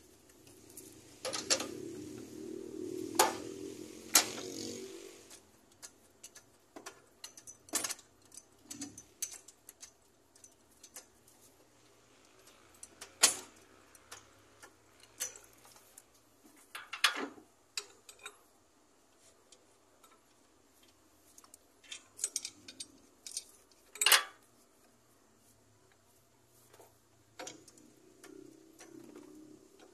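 Intermittent sharp metallic clicks and clinks of hand tools and parts being handled, with a few seconds of scraping shortly after the start.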